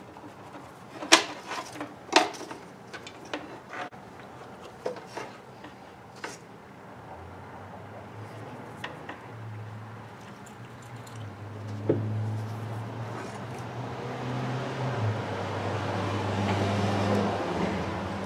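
Sharp clicks and taps of hands working a wire and a plastic crimp connector, the loudest about one and two seconds in. From about seven seconds in, a low steady hum with a rising hiss joins, loudest near the end.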